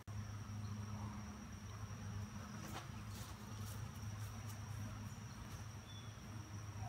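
Insects at a backyard honeybee hive: a low steady buzzing hum of honeybees flying around the hive, with a thin, high, steady insect trill above it. A few faint rustles come about three seconds in.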